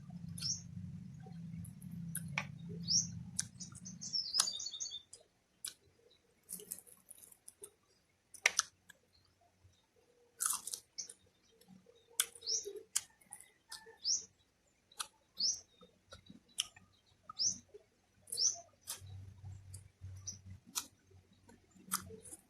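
A person chewing and smacking food close to the microphone, with irregular wet clicks. Short rising bird chirps sound every second or two in the background.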